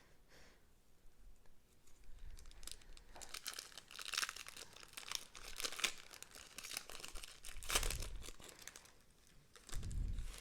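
Trading cards and their packaging being handled, making irregular crinkling and rustling, with a couple of soft thuds near the end.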